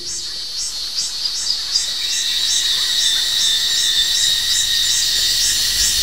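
Summer insects calling in a forest: a high repeating pulsed call, about three strokes a second, over a steady high-pitched drone.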